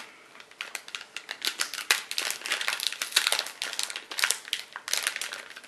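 Plastic packaging of a new laptop hard drive crinkling and crackling as it is opened by hand: a dense, irregular run of sharp rustles.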